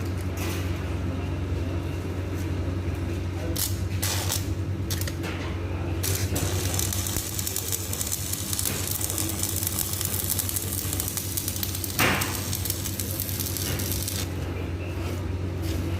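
Electric arc welding: the arc crackles and sizzles for about eight seconds over a steady low hum. A few sharp metal knocks come before it, and one loud knock comes near its end.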